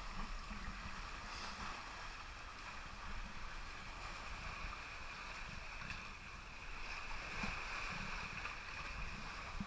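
Shallow sea water sloshing and lapping around a waterproof action camera held at the waterline, heard as a steady low rumble and hiss.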